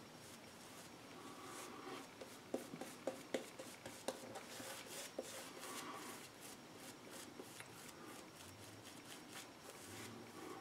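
Synthetic shaving brush working lather over the face and neck: faint soft brushing and squishing, with a run of small clicks and pops about two to five seconds in.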